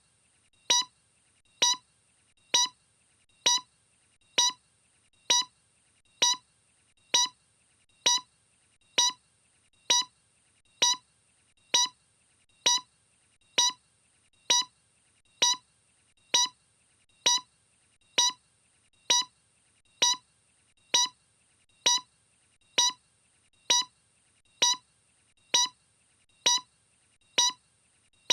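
A short electronic beep with a 1 kHz tone, repeating at an even pace a little faster than once a second.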